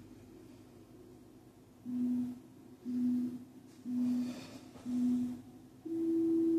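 Workout interval timer beeping: four short beeps of one low pitch about a second apart, counting down, then a longer, higher beep near the end that signals the start of the next exercise.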